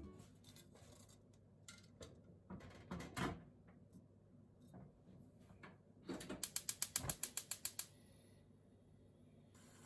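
A few light knocks and handling sounds, then a quick run of about a dozen ratcheting clicks lasting under two seconds, like a small ratchet or dial mechanism being turned.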